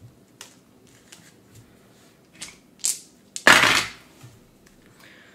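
Light clicks and taps of board-game cards and pieces being handled on a table, then a short, loud rush of noise lasting about half a second, roughly three and a half seconds in.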